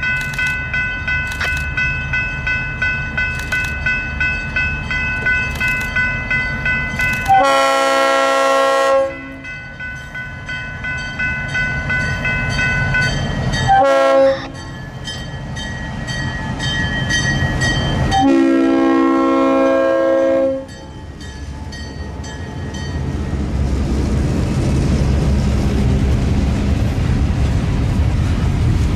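A diesel freight locomotive's air horn sounds for a grade crossing: a long blast, a short one, then a long one, over a warning bell ringing steadily about once or twice a second. The locomotive then passes and the freight cars rumble by on the rails, growing louder.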